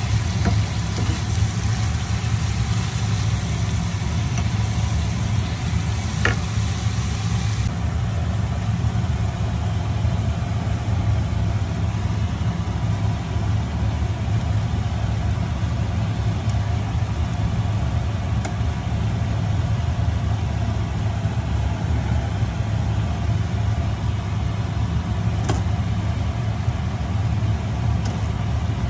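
A steady, unbroken low rumble, with a few faint clicks as a wooden spatula stirs noodles and vegetables in a frying pan.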